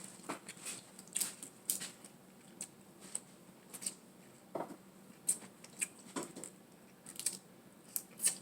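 Close-miked eating sounds: irregular wet mouth clicks and smacks while chewing, about one or two a second.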